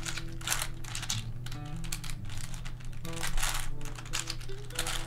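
Plastic layers of a WitEden Super 3x3x8 cuboid puzzle (version 2) clicking and rattling in quick irregular runs as they are turned to scramble it, over quiet background music.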